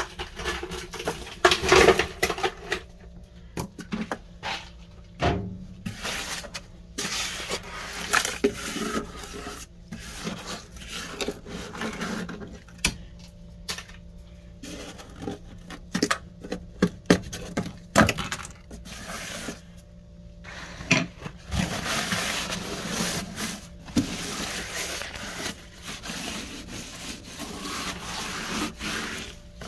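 Frost being scraped and broken off the inside walls of a freezer: irregular crunching and scraping with sharp cracks, becoming a denser, steadier crunching near the end.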